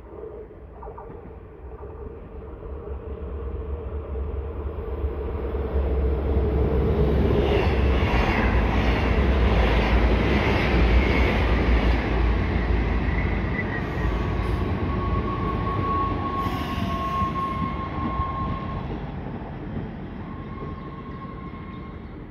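NS Sprinter Lighttrain (SLT) four-car electric multiple unit approaching and running in along the platform, its rumble building to a loud peak midway and then easing as it slows. A high steady squeal rises in the second half as it brakes.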